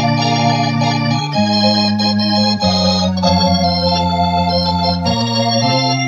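1965 Vox Continental combo organ playing sustained chords through a Boss RT-20 rotary speaker simulator. The chord changes about four times, with the bass notes stepping to new pitches.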